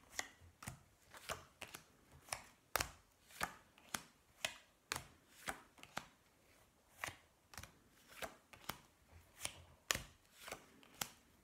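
Playing cards being turned over and laid down one after another on a glass tabletop, each card landing with a short sharp tap, at a steady pace of about two a second as two players take turns.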